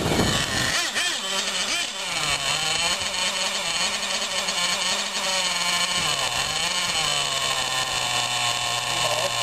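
Thunder Tiger MTA4 Sledge Hammer S50 RC monster truck driving, its motor's pitch rising and falling with the throttle over a steady hiss. A loud rush of noise fills the first second.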